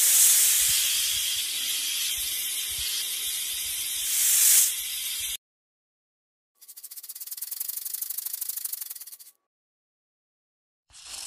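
A snake's dry hiss for about five seconds, loudest at the start and again near the end, then after about a second of silence a rapid, evenly pulsed rattling buzz for about three seconds.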